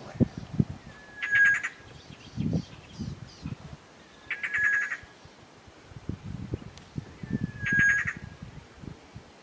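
A bird repeats a short, rapidly pulsed rattling call about every three seconds, four times, over several low thumps and rumbles.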